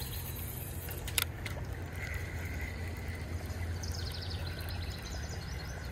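Steady low rumble of outdoor riverside background noise, with a few light clicks about a second in.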